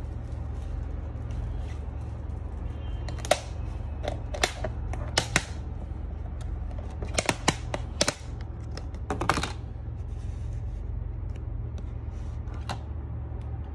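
Thin plastic food-container lid clicking and crackling as fingers press and pry it off, in about a dozen sharp snaps, some in quick pairs, over a steady low hum.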